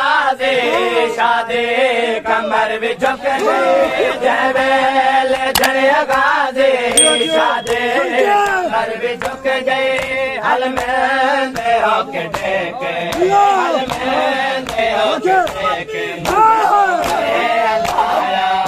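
A crowd of men chanting a Punjabi noha lament in unison, crossed by regular sharp slaps of hands striking bare chests in matam.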